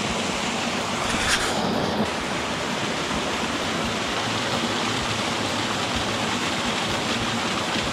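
Small mountain creek water rushing steadily over a cascade and rock shelves into a pool, with a brief louder rush about a second in.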